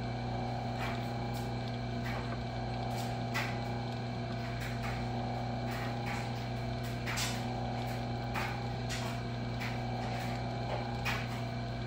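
Metal lathe running steadily while a twist drill, held in a drill chuck in the spinning three-jaw chuck, bores all the way through a piece of round stock fed from the tailstock: a steady motor hum with scattered faint ticks from the cut.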